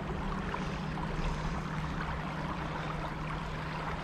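Shallow river water flowing steadily over a rocky bed, an even rushing with a low steady hum underneath.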